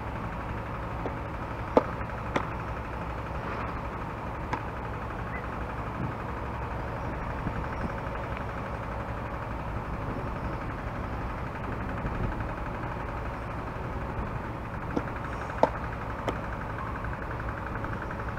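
A softball pops sharply into a catcher's leather mitt about two seconds in, and there is another sharp pop near the end, over a steady low mechanical hum.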